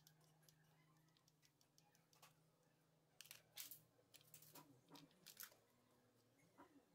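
Near silence, with faint scattered clicks and short scrapes over a low steady hum; they are thickest between about three and five and a half seconds in.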